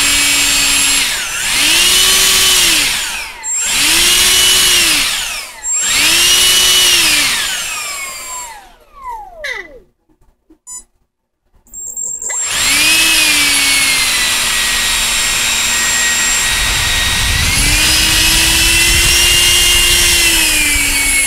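Small brushless-motor RC ducted fan whining as a servo tester drives it. It speeds up and slows down three times, spins down to a stop, then starts again about three seconds later and runs steadily, speeding up a little near the end.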